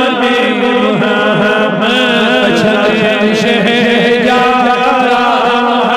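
Male voice chanting a Kashmiri naat in a drawn-out, wavering melody over a steady low drone.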